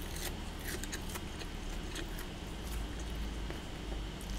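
Close-miked chewing of crisp seasoned roasted laver (gim) with rice: soft, irregular crackles and clicks over a steady low hum.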